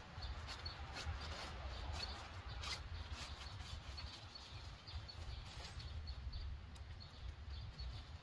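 Nylon tent fabric rustling with scattered light clicks as a lightweight backpacking tent and its poles are handled, over a steady low wind rumble on the microphone and faint bird chirps.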